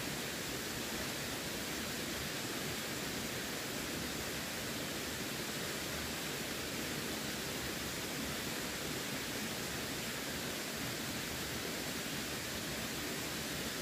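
Running water rushing steadily: an even, unchanging hiss with no separate splashes or other events.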